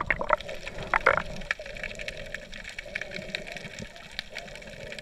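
Water heard through a submerged camera: a muffled wash with scattered small clicks and crackles, a few louder knocks in the first second or so, and a steady hum underneath.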